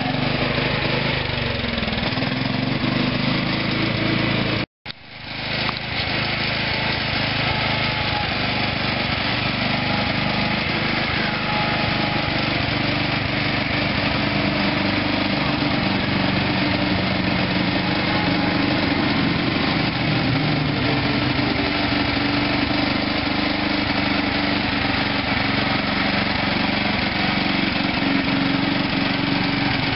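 Simplicity zero-turn riding mower's single-cylinder engine running steadily as the mower is driven around. The owner feels it still doesn't sound quite as good as it should. The sound cuts out for a moment about five seconds in.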